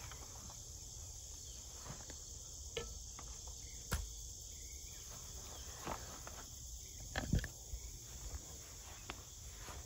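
Faint steady chirring of insects in the background, broken by a few soft knocks and clicks of handling.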